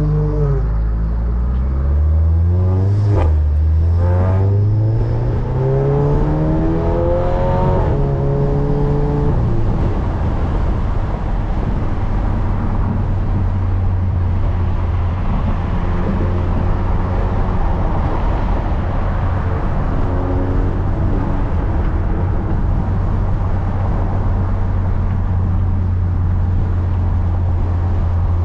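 Catless, tuned Audi S3's turbocharged four-cylinder accelerating, heard from inside the cabin. The revs climb, drop sharply with a crack at an upshift about three seconds in, and climb again. Near ten seconds the throttle lifts and the engine settles to a steady low drone while cruising.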